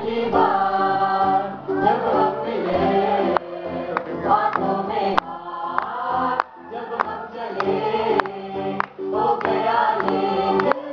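Mixed group of male and female voices singing a song together into microphones, with sharp rhythmic strokes of accompaniment.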